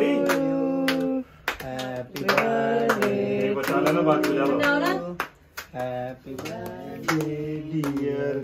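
A small group of people singing a birthday song together, holding long notes, while clapping in a steady rhythm.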